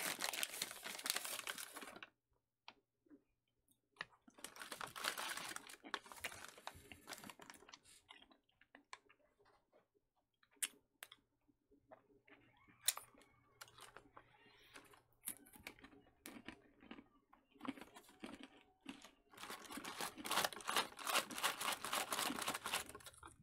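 MRE pretzel pouch crinkling and rustling in bursts, at the start, a few seconds in and near the end, with scattered crunches of very hard pretzels being chewed in between.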